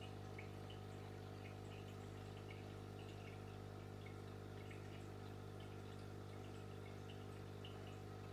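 Aquarium pump humming steadily, with faint water trickling and small drips and bubbles in the tank.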